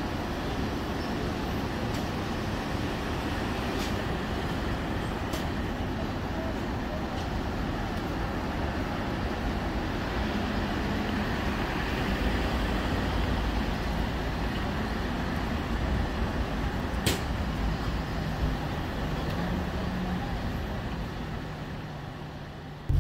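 Steady road and tyre noise of a car cruising on an expressway, with a few short sharp clicks; it fades away near the end.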